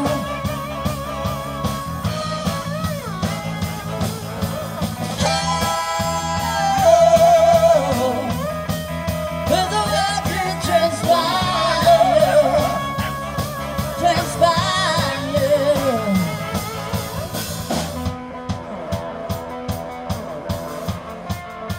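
Live band playing through a PA: a singer with vibrato over a horn section, guitars, bass and drums. About eighteen seconds in the singing and brighter sounds drop away, leaving the bass and drums.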